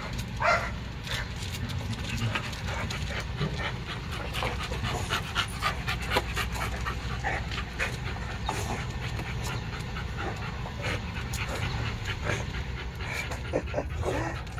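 American bully dog panting with short, quick breaths.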